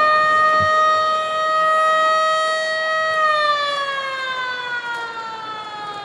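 Stadium siren sounding loudly in one long note that rises slightly and holds, then from about halfway falls steadily in pitch and fades as it winds down. It is reportedly set off by an equipment malfunction.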